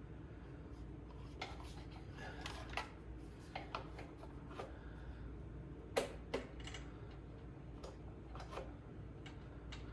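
Scattered small clicks and taps of hands handling mower parts and wiring, the sharpest about six seconds in, over a faint steady low hum.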